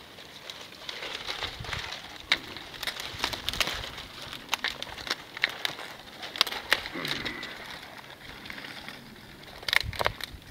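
Dry sticks and twigs being piled onto a small, newly lit campfire: twigs rustling, clacking and snapping as they are laid on, with the young fire crackling. A tight cluster of louder snaps comes near the end.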